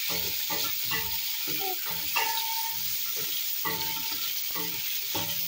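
Beef and sliced red onions sizzling in hot oil in a stainless steel pot. A wooden spoon stirs them in quick, regular strokes, scraping the bottom of the pot.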